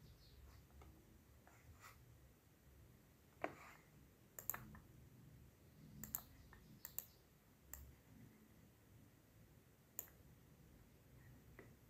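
Scattered clicks of a computer mouse, some single and some in quick pairs, over a faint low hum.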